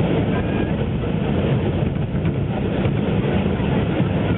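Steady running noise of a KiHa 20 diesel railcar, heard from inside its cabin: the diesel engine's drone mixed with the rumble of wheels on the rails.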